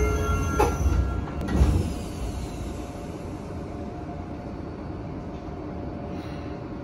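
A subway car's door chime ends as the doors slide shut, with a knock about half a second in and a heavier thud about a second and a half in. Then the Tokyo Metro 9000-series car stands with its doors closed, giving a steady low hum.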